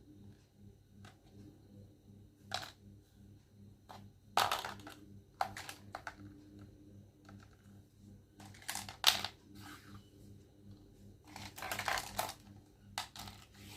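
Hands handling a plastic toy make-up set: irregular clicks, taps and short rustles, the loudest about four, nine and twelve seconds in, over a faint steady low hum.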